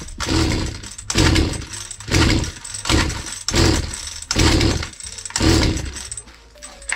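Two-stroke engine of a Husqvarna 235R brushcutter being pull-started, about seven rough pulls of the recoil starter roughly a second apart, without it running on. The owner blames this on a wrong ignition coil that loses its spark as the revs rise.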